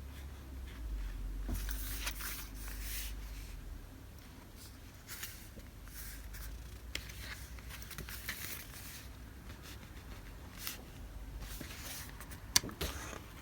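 Paper stationery being handled: sheets and packets rustling and sliding against each other, with one sharp click a little before the end.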